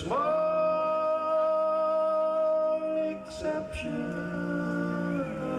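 Bluegrass band singing close vocal harmony, several voices holding long sustained notes as one chord. The chord is held about three seconds, breaks off briefly, is taken up again, then moves to a new chord near the end.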